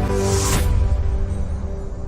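Background music with sustained held chords, a brief rushing swell about half a second in, slowly fading out.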